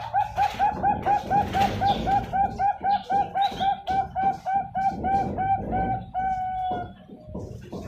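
Bangkok-strain zebra dove (perkutut) singing: a fast, even run of short cooing notes, about four a second, for some six seconds, closing on one longer drawn-out note. This is the 'many middle notes, long ending' song form that perkutut fanciers prize.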